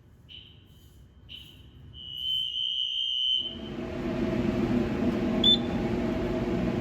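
Wheelock NS fire alarm horn sounding two short blasts about a second apart, then one longer blast of about a second and a half. The erratic pattern comes from the panel's smart-sync walk-test commands, which the non-sync horn doesn't follow properly. About three and a half seconds in the horn cuts off and a louder steady noise takes over, with one short high beep about two seconds later.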